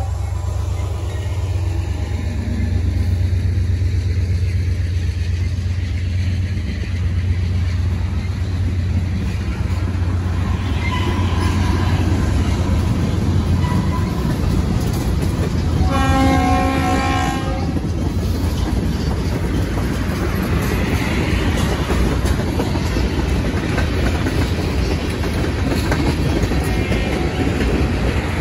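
Norfolk Southern freight train rolling past: the diesel locomotives' steady low rumble gives way to freight cars' wheels clicking and rattling over the rails. About halfway through, a Leslie RS3L horn gives one short blast.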